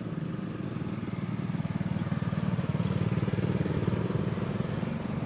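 A small engine running steadily with a fast, even putter, getting somewhat louder through the middle.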